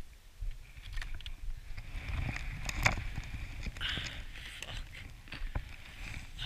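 Skis sliding and scraping over snow, with scattered short clicks and knocks and a steady low rumble.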